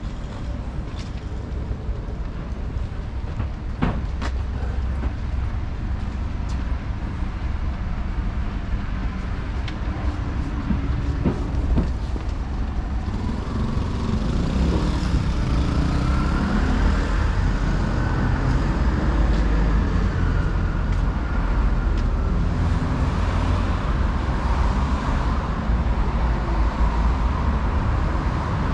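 Road traffic on a city street: a steady rumble of cars and heavier vehicles, growing louder about halfway through as vehicles pass close by.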